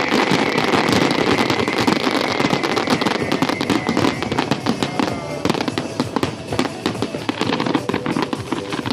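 Fireworks going off in rapid succession: a dense, continuous crackle of many small bangs and pops.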